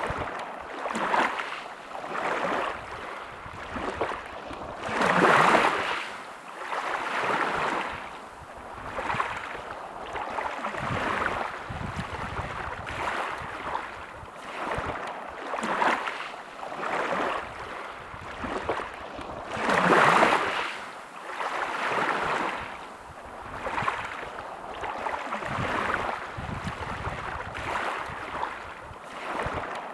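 Sea waves washing onto a beach, the surf swelling and ebbing every couple of seconds, with two larger waves breaking about five seconds in and again about twenty seconds in.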